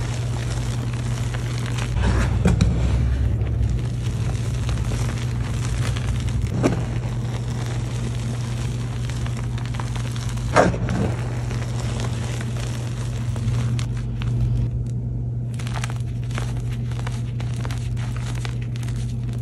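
Hands crushing and crumbling reformed Easy Grip gym chalk in loose chalk powder: continuous soft crunching and crackling, with a few sharper cracks, the loudest about ten seconds in. A steady low hum runs underneath.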